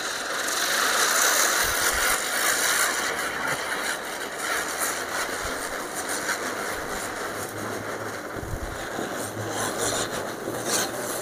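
Large 70 cm Diwali ground spinner (chakri) firework whirling fast on the ground: a steady hissing whoosh of burning composition and spraying sparks, with a few crackles.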